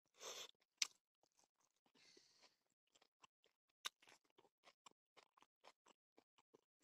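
Close-up eating sounds at low level: faint wet clicks and smacks, several a second, from chewing and from fingers working rice and salad on a banana leaf. A short, soft hiss comes about two seconds in.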